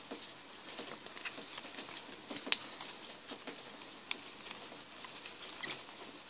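Light rustling and small clicks of a paper sticker sheet and a plastic capsule half being handled over a plastic bag, with one sharper tap about two and a half seconds in.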